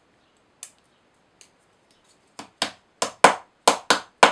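A few faint clicks of small plywood kit pieces being handled, then, a couple of seconds in, a quick run of sharp scraping strokes, about four a second, as a pencil is rubbed against a small laser-cut plywood part.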